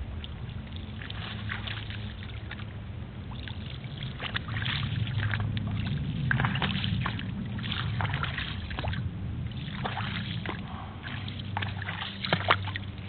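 A low, steady engine-like drone with irregular crackling and clicking close to the microphone.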